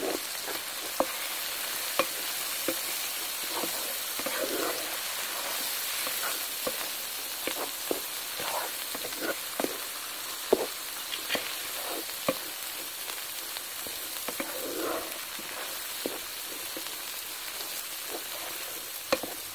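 Onions and ground spices sizzling in hot oil in a metal kadai, the masala being fried (bhunai). A wooden spoon stirs through it, scraping and knocking against the pan every second or so.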